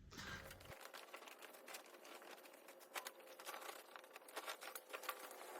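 Faint, irregular light clicks and ticks over a faint steady hum.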